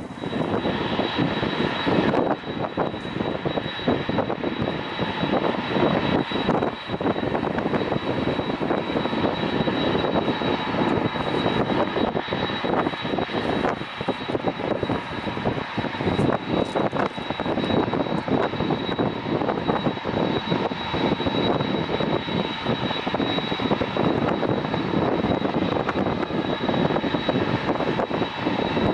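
Boeing 747-400's four GE CF6-80C2 turbofan engines running at taxi power: a steady jet rumble with a thin high whine above it.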